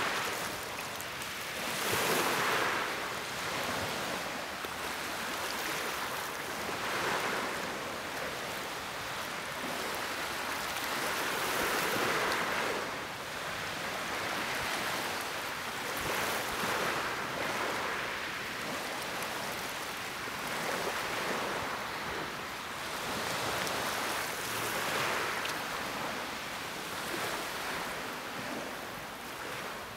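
Small waves washing in, swelling and fading every few seconds, with wind buffeting the microphone.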